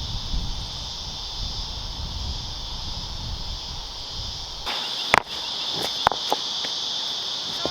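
Steady, high-pitched insect chorus throughout. A low rumble under it cuts off suddenly about two-thirds of the way in, and a few sharp knocks follow.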